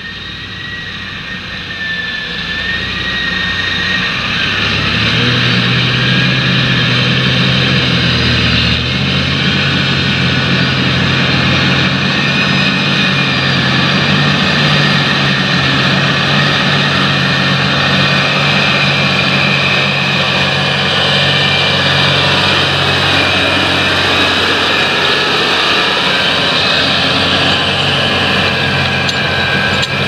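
John Deere 8360RT rubber-tracked tractor working hard, pulling an eight-furrow Gregoire Besson plough through heavy land. The engine drone grows louder over the first few seconds as the tractor approaches, then runs steadily under load with a high whine over it.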